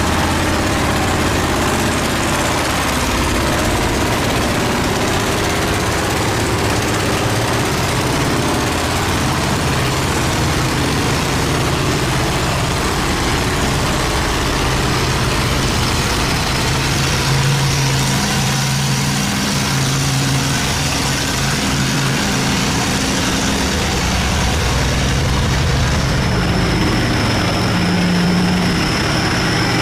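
Boat engines running, their low tones shifting in pitch now and then, over a steady rushing noise.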